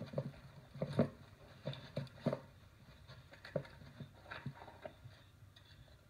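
Salsa Mukluk fat bike rattling and knocking as it rolls over rocks and dry leaves: irregular clatters of the bike and camera mount over a low rumble of the tyres, the sharpest knocks about a second in and around two seconds in.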